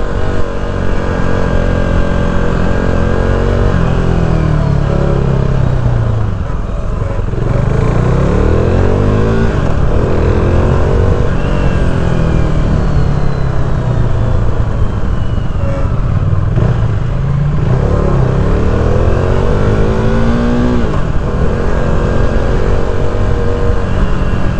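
KTM RC390's single-cylinder engine pulling hard through the gears: the revs climb and fall away sharply at each shift, about half a dozen times.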